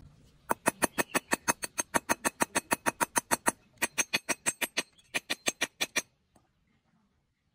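Rapid hammer blows, metal on metal, on a steel rod laid across a piece of railway rail used as an anvil, about six strikes a second, bending the rod's end into a loop. The strikes break off briefly about three and a half seconds in, resume, then stop about six seconds in.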